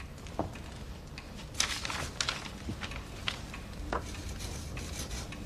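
Pen scratching on paper in a few short strokes as a signature is written, with a couple of soft knocks.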